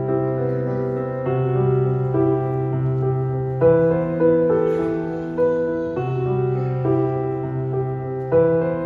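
Slow piano music: sustained chords under a melody, with new notes struck about once a second.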